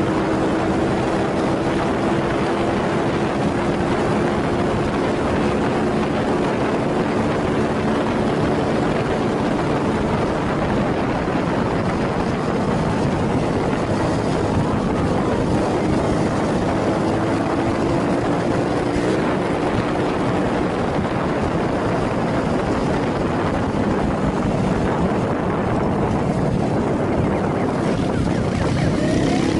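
Motorcycle engine running at a fairly steady pitch under a dense rush of wind and road noise, heard from the rider's own bike.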